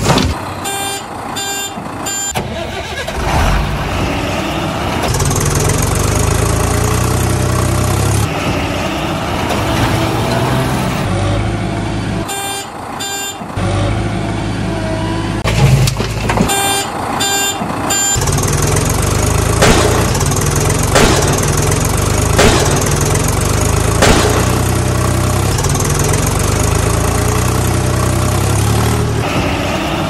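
Heavy vehicle engine running steadily, with three short runs of evenly spaced reversing beeps (near the start, about halfway, and a few seconds later) and a few sharp clunks in the second half.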